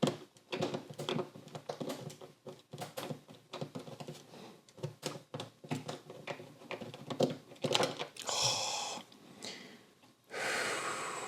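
LEGO plates and bricks being prised apart by hand: a run of small sharp plastic clicks and ticks, with two longer noisy scraping or hissing stretches near the end. The old brittle brown plastic is cracking as it is pulled.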